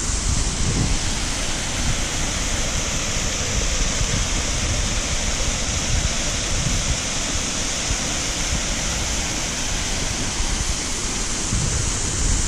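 Steady rushing of a waterfall and the stream spilling over the rocks at its lip. Wind buffets the microphone with uneven low rumbles throughout.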